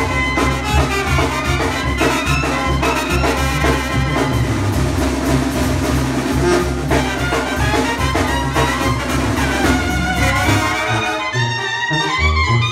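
Tamborazo brass band playing live: trumpets, trombones and clarinet over a sousaphone bass line and drums. The low bass drops out briefly about eleven seconds in and comes back near the end.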